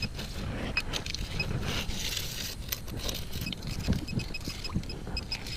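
Short high metal-detector beeps repeating about four times a second, stopping for a couple of seconds while water and sand slosh, then starting again: the detector sounding off on a target being pinpointed. Scattered clicks and a low rumble run underneath.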